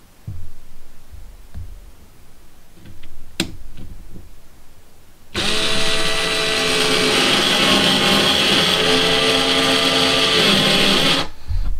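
Bauer 4V lithium-ion cordless screwdriver running for about six seconds as it drives a 1¼-inch screw into drywall: a steady motor whine with gear noise, its pitch shifting a little partway through, cutting off abruptly. It lacks the power to fully seat the screw. Before it starts, a few light knocks and a sharp click.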